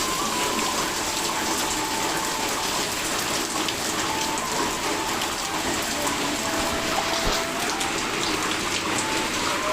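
Heavy rain falling hard, an even, unbroken hiss of water.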